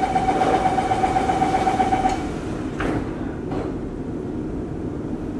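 Singapore MRT Downtown Line train's door-closing warning, a rapid beeping on one steady pitch that stops about two seconds in. The sliding doors then shut with a thud and a second, lighter knock, over the steady hum of the train.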